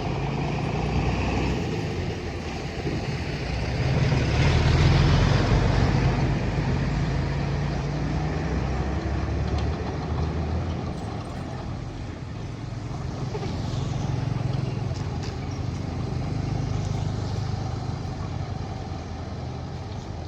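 Heavy earthmoving machine's engine running steadily, swelling louder about four to six seconds in and again around fourteen seconds as it works under load.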